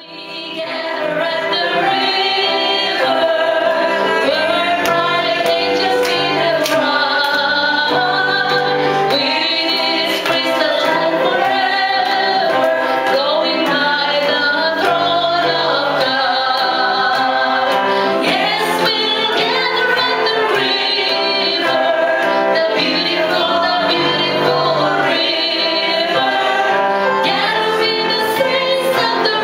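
Women singing a gospel hymn together, fading in at the start and then going on at a steady level.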